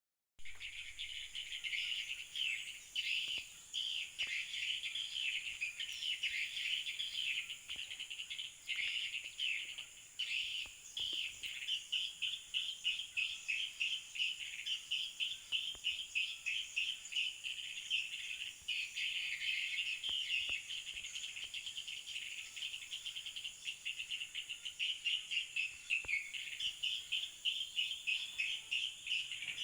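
Birds chirping and trilling in rapid, repeated bursts, over a steady high-pitched insect drone.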